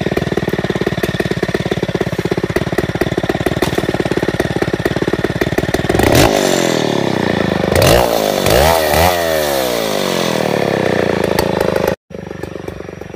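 Stihl 070 two-stroke chainsaw running at a steady low speed, then revved up and down several times about halfway through before settling back. The sound cuts off abruptly near the end.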